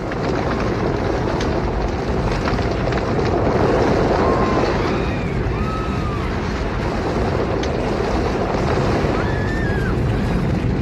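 Stampeding herd of bison: the dense, steady rumble of many hooves. A few short high cries rise over it about four, six and nine and a half seconds in.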